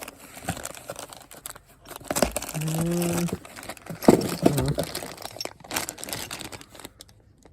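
Paper and packaging crinkling and rustling as a new ignition switch is unpacked by hand, with scattered small crackles and clicks.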